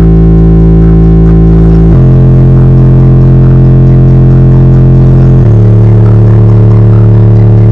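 Two Sundown Audio Zv3 subwoofers in a ported box, driven by a Popcorn Sounds 4k bass amplifier, play a bass-heavy music track very loudly, heard from inside the vehicle. Long held bass notes step down in pitch about two seconds in and again about five and a half seconds in.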